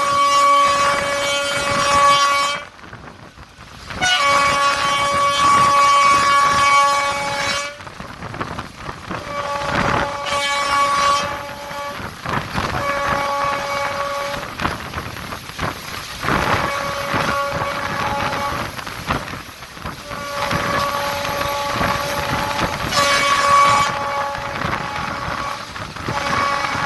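Electric train horn sounding over and over in about seven blasts of one to four seconds each, separated by short gaps, with the running noise of the moving train underneath.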